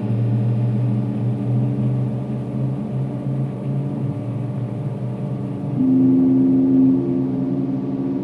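Ambient drone score: layered, steady held tones. A deep tone enters at the start and a higher tone swells in about six seconds in.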